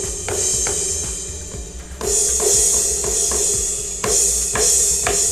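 Cymbal voice of an AMW ED3 electronic drum kit's cymbal pad, played through a loudspeaker and struck again and again. A fresh ringing crash swells about every two seconds, with quicker hits in between.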